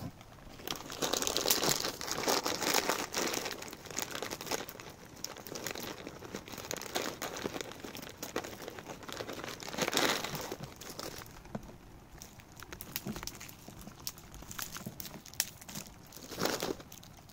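Crinkling and rustling of something being handled close by, in dense bouts for about ten seconds, then lighter, with one short burst near the end.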